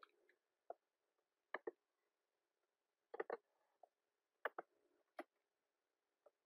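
Computer mouse buttons clicking, some single clicks and some quick pairs, against near silence.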